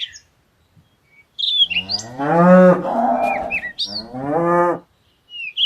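Cow mooing twice: one long moo lasting about two seconds, then a shorter one.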